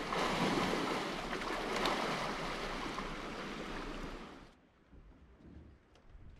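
Water splashing and rushing as an African elephant wades through a shallow river, mixed with wind noise on the microphone. The rushing cuts off sharply about four and a half seconds in, leaving faint ambience with a few light ticks.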